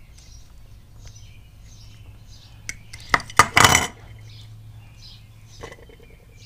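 A utility knife and a heavy welding cable handled on a wooden workbench while the cable's rubber insulation is stripped: a sharp click a little under three seconds in, then a loud, brief clatter, and a smaller knock near the end.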